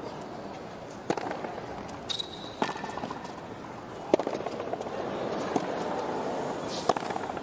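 Tennis ball struck back and forth in a rally: about five sharp racket hits, roughly a second and a half apart. There is a brief squeak of court shoes early on the hard court, over a steady low murmur of the crowd.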